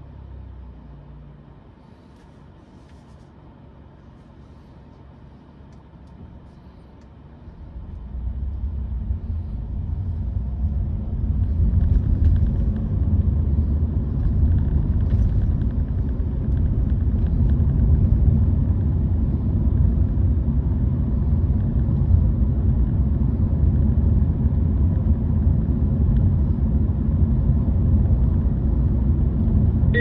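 Low, steady road rumble of a Honda Vezel e:HEV hybrid car driving, heard inside the cabin. It is fairly quiet at first and grows much louder about eight seconds in, then holds steady.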